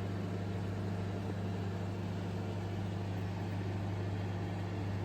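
Steady mechanical hum with a low drone and a hiss, unchanging throughout.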